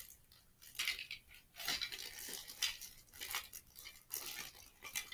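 Plastic toy letters being handled and sorted through: quiet, scattered clicks, clatters and rustles, on and off.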